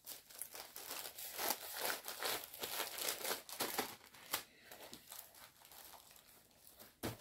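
Clear plastic bag crinkling as it is handled, a dense run of crackles that thins out after about four and a half seconds, with one sharper crackle near the end.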